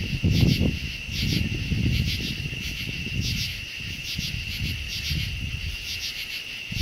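Night chorus of crickets and other insects: a steady high trill with pulsing chirps above it, over a low, uneven rumble that swells and fades.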